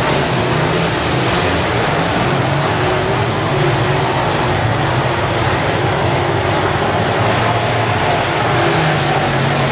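Several semi late model race cars' V8 engines running at speed on a dirt oval, a loud steady blend of engine noise whose pitches waver up and down as the cars go around.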